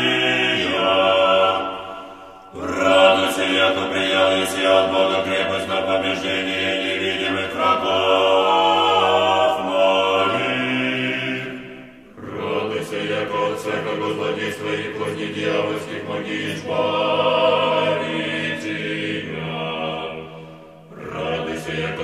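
Orthodox church choir chanting in slow, sustained chords, the phrases broken by short pauses about two and a half seconds in, about twelve seconds in, and again near the end.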